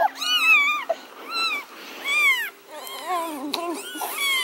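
Baby kittens mewing: a string of high-pitched cries, about one a second, each rising and then falling in pitch.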